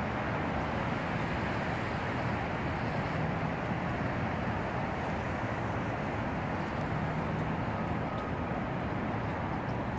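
Steady outdoor rumble and hiss of distant city traffic at an even level, with no distinct event standing out.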